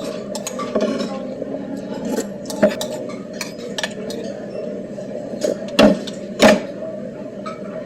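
Cutlery clinking and scraping against a bowl of soup during a meal, with a few sharp louder clinks, the loudest about six seconds in.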